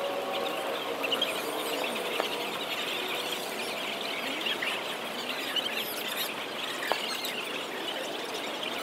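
Many small birds chirping and squeaking in the trees, a steady stream of short high calls over a constant background hiss.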